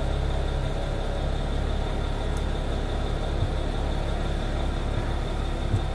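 Low, steady rumble of an idling vehicle engine, with a faint, thin high tone held steady above it.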